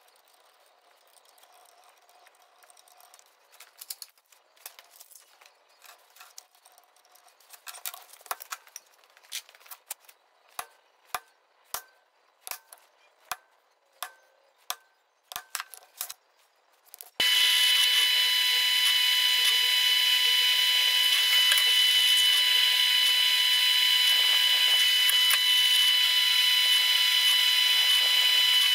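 Light metallic taps on a punch marking hole centres in a metal plate, evenly spaced at a bit over one a second. Then a pillar drill starts suddenly and runs loud and steady with a whine while drilling the plate.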